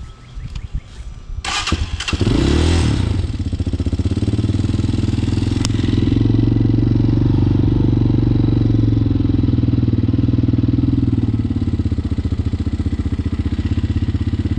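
Hawk 250 motorcycle's single-cylinder engine, fitted with a new carburetor, started on choke. It fires about a second and a half in, revs briefly, then settles into a steady idle.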